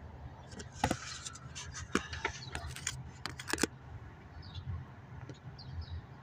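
Car engine idling with a steady low hum, with a run of sharp irregular clicks and knocks about a second to three and a half seconds in; the owner presents the running engine as the sound of a failing water pump.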